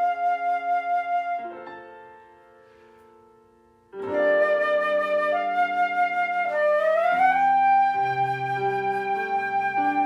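Instrumental music: a slow, sustained flute-like melody with a pulsing vibrato over held keyboard chords. It fades out about two seconds in and comes back about four seconds in, the melody sliding up to a higher held note near seven seconds.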